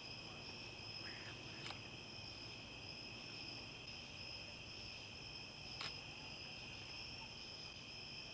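Steady high-pitched chorus of night insects, with two short sharp clicks, one about two seconds in and one near six seconds.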